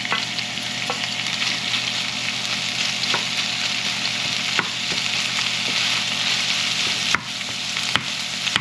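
Ground sausage, chopped onion and green pepper sizzling steadily in a skillet while a wooden spoon stirs them in, with a few sharp clicks of the spoon against the pan.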